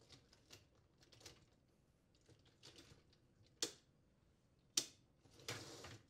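A KitchenAid dishwasher's upper wire dish rack clicking and rattling as it is set on its roller rails and pushed in: light ticks, two sharp clicks about a second apart, then a short rattle as the rack rolls in near the end.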